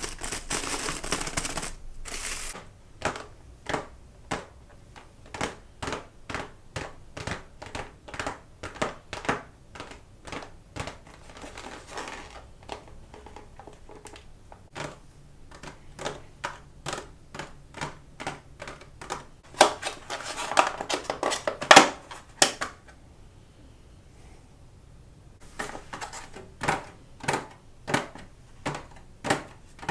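Close-miked eating sounds: steady rhythmic chewing, about one and a half to two crisp clicks a second, with a few louder crackly, crinkly stretches, the loudest a little past the middle.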